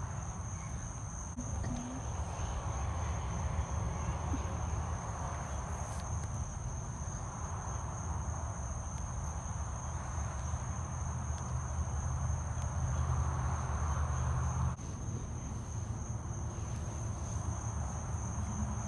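Steady, high-pitched chirring of a night-time insect chorus, with a low rumble underneath that eases off about fifteen seconds in.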